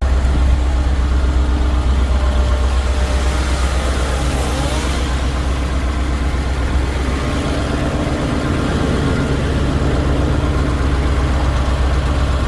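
Heavy engine running steadily at a constant speed, with a strong low hum.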